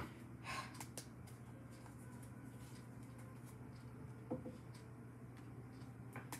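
Tarot cards handled on a wooden tabletop: a few faint taps and slides of card against card and table, over a steady low hum.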